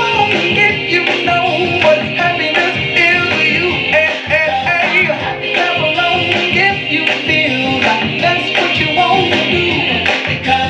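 A song with singing and guitar, streamed over Bluetooth and played through a 1950 Seeburg model B jukebox's amplifier and speaker.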